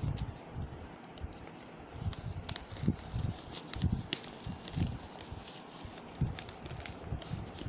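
A power bank's retail package being handled and cut open with a knife: irregular light knocks, clicks and scrapes, with a few dull thumps.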